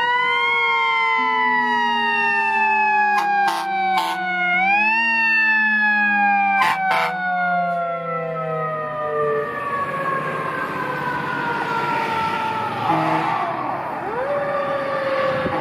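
A fire engine's Federal Q2B mechanical siren coasting down in a long, slowly falling wail, revved back up about four seconds in and again near the end. A few short blasts cut through between about three and seven seconds in, and the truck's engine and road noise grow loud as it passes.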